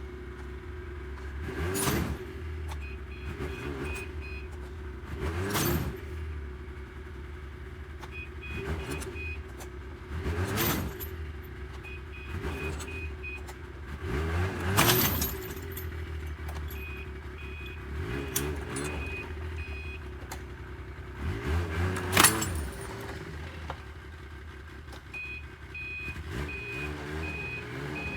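Yamaha Viking snowmobile engine running under heavy load, revving up and dropping back in surges every few seconds as it strains to pull a big log. Short runs of steady high beeping from its reverse warning come and go between the surges.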